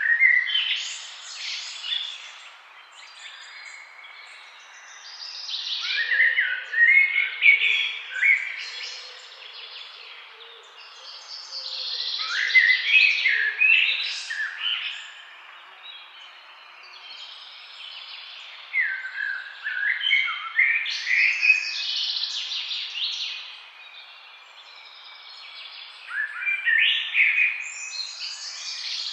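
A songbird singing in repeated phrases of quick, sharply gliding, high notes, each phrase lasting a few seconds, with pauses of a few seconds between them, over a faint steady background hiss.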